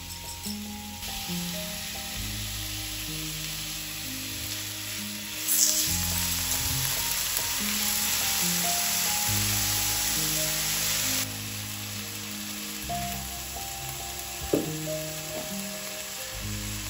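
A steady hiss, much louder for about six seconds in the middle, over background music with low sustained notes.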